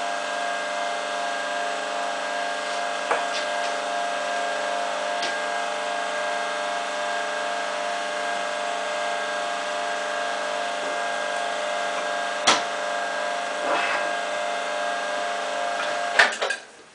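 Electric forging furnace running with a steady hum of several fixed tones, with a few sharp clicks. The hum stops abruptly just before the end.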